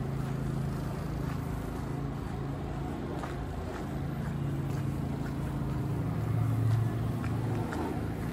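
Low, steady drone of downtown street traffic and engines, swelling briefly about six seconds in, with faint scattered footsteps on the snowy sidewalk.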